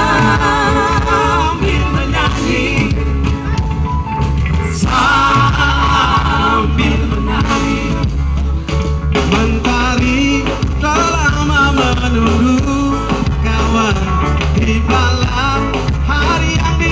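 Live band playing a song, with lead and backing singers over electric guitar and a steady bass line, amplified through the stage sound system.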